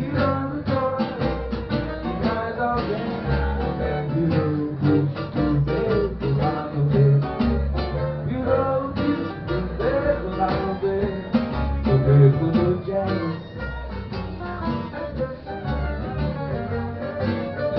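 A band playing music led by guitar, with a quick run of plucked notes over recurring low bass notes.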